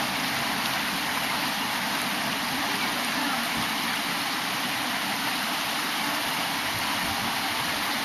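Steady rush of a mountain valley stream, flowing water making an even hiss with no breaks.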